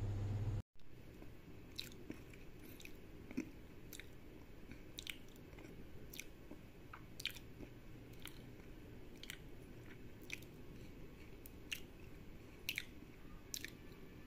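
Faint chewing with irregular wet mouth clicks and smacks, roughly one a second.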